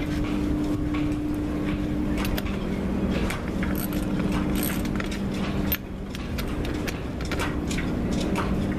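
Socket ratchet wrench clicking in irregular spells as it turns the nut on a puller, pressing an old cutless bearing out of a sailboat's propeller-shaft strut. A steady low hum runs underneath and dips briefly about two-thirds of the way through.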